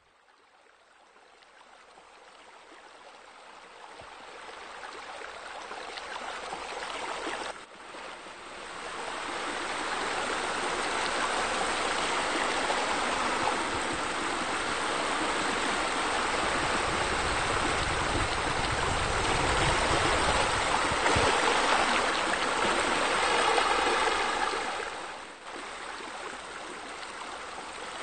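Pool waterfall: water spilling and splashing into a pool in a steady rush. It fades in from near silence over the first several seconds and dips briefly twice, about 8 and 25 seconds in.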